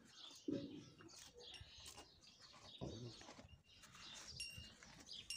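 Murrah buffalo calf tearing at and chewing green fodder: irregular crunching and leaf rustling, with two louder crunches about half a second and three seconds in.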